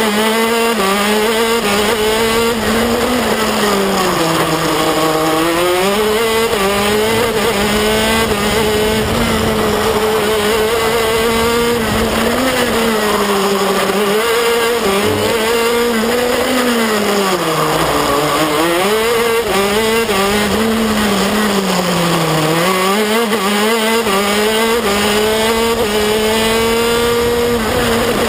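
KZ2 shifter kart's 125 cc two-stroke single-cylinder engine at racing speed, heard on board. The engine note repeatedly drops as the kart slows for corners and climbs again as it accelerates out.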